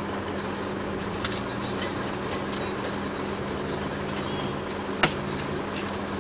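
Komatsu rigid-frame dump truck's diesel engine running steadily as the truck drives off, a constant hum with a steady tone. A sharp click about a second in and another about five seconds in.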